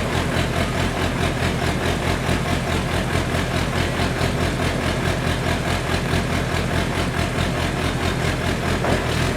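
Drill rig's engine running steadily with an even low throb, with no change in speed, while the rig's power head is raised.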